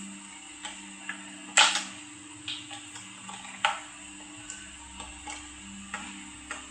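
Irregular sharp clicks and taps, about eight in all, the loudest about one and a half seconds in, over a steady low hum and a faint high whine.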